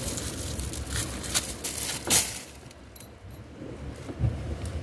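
Plastic bread bag crinkling and rustling as bread is pulled out of it by hand, with the loudest crackle about two seconds in; the handling then turns quieter.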